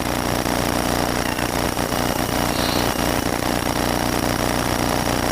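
Rally car engine idling steadily, heard from inside the cabin.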